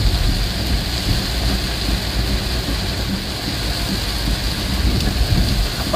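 Heavy rain pouring onto a moving vehicle's windshield and body, heard from inside the cab as a steady hiss over a low rumble from the vehicle on the wet road.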